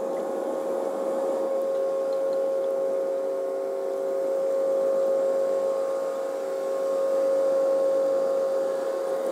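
Steady droning hum of a tugboat's diesel engines as it pushes a tank barge, with one strong held tone over a rough hum.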